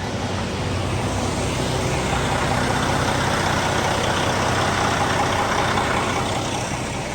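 Steady rushing noise with a low hum underneath, of the kind a vehicle makes on the move.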